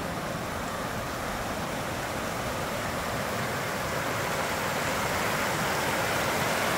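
Rushing water of a rain-fed stream, a steady rush that grows gradually louder.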